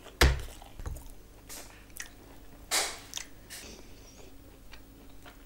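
Close-miked eating sounds: wet mouth clicks and smacks from chewing, with a short hissy slurp a little before the middle. A heavy thud comes about a quarter second in and is the loudest sound.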